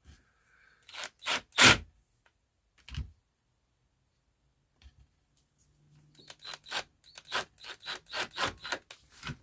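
Work sounds at a bench: a few sharp knocks, then a run of quick scraping clicks at about three a second, as a tool works at the wire hole to make it bigger.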